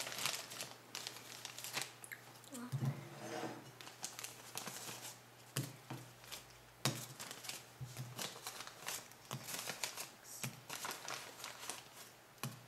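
Plastic marshmallow bag crinkling and crackling irregularly as it is handled and marshmallows are pulled out of it, with a few soft knocks scattered through.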